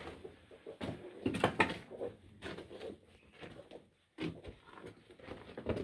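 Irregular footsteps and knocks on loose rock and wooden planks in a mine tunnel, with scuffs and clatters between them.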